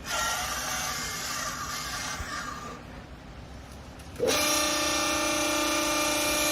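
Hydraulic baler machinery running: a hissing rush for the first two and a half seconds, then, about four seconds in, a loud steady pitched hum with a strong whine starts and holds.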